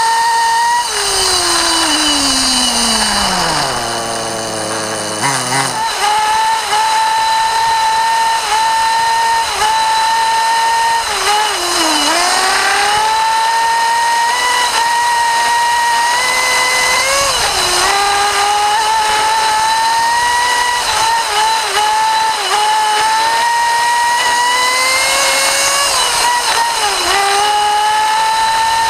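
Nitro RC buggy's small glow engine running at high revs, heard close up from on board the car. About a second in the revs fall away steeply and pick up again after about five seconds; shorter dips and recoveries follow about 12, 17 and 27 seconds in as the throttle is lifted and reopened.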